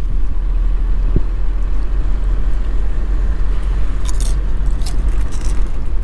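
Wind buffeting the camera microphone on a moving car, over a steady low rumble of the car on the road. A few sharp crackles come about four seconds in.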